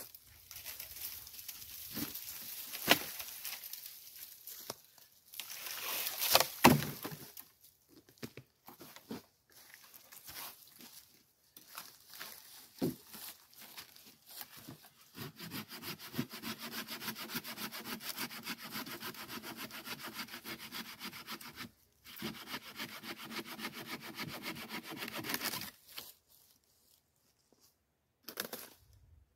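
Dry branches cracking and rustling through leaf litter as dead wood is handled, with the loudest sharp cracks about 3 and 6 seconds in. From about halfway through, a folding hand saw cuts through a dead branch in fast, even strokes, in two spells with a short pause between.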